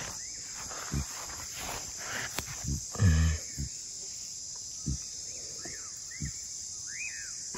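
Steady high-pitched insect chorus, with a few dull knocks, a brief louder low sound about three seconds in, and several short chirps in the last couple of seconds.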